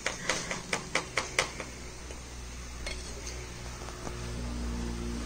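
Metal spoon clinking against a stainless steel bowl while scooping baking soda: a quick run of light clinks in the first second and a half, then a few scattered ones.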